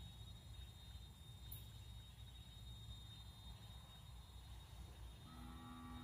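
Faint outdoor ambience: a steady low rumble with a thin, steady high tone above it. Near the end, a short steady-pitched call that drops in pitch as it ends.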